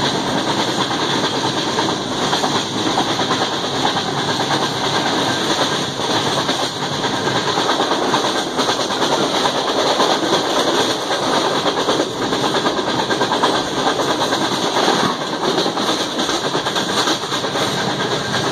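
Express passenger coach running at high speed, heard from inside at an open window: a steady rush of wheel and rail noise with faint clicks from the track now and then.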